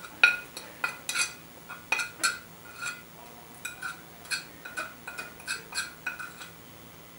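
Metal spoon scraping and tapping against a ceramic plate: a run of irregular clinks and scrapes, a few a second, each with a short bright ring, as spices are scraped off the plate into a dish.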